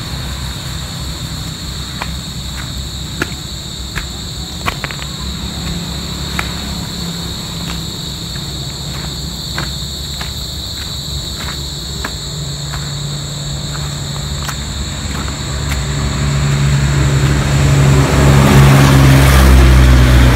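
Scattered crackles of twigs and stones underfoot over a steady high insect buzz. From about two-thirds of the way in, a motorcycle engine approaches and grows loud near the end.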